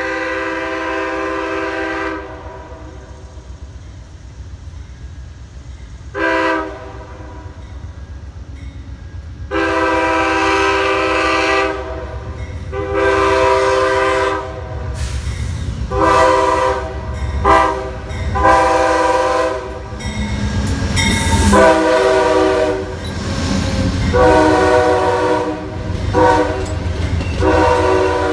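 An Amtrak passenger train's locomotive horn sounds about a dozen blasts, long and short, as the train approaches a grade crossing. Under the horn, the rumble of the locomotive and the wheels on the rails grows louder, and the passenger cars are passing close by near the end.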